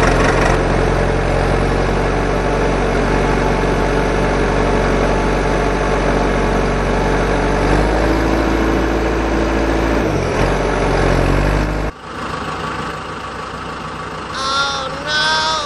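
Engine idling steadily, a dubbed-in sound effect rather than the toys themselves. About twelve seconds in it cuts suddenly to a quieter engine sound, and two short tones that rise and fall come near the end.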